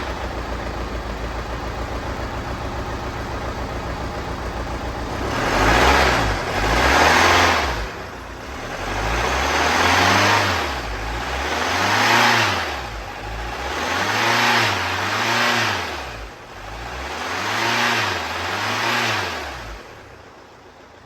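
Mercedes-Benz E250 engine idling with a rapid, even pulsing, then revved about six times, each rev rising and falling, before the sound falls away near the end. The engine has a knocking noise that the mechanic puts down to a seized piston.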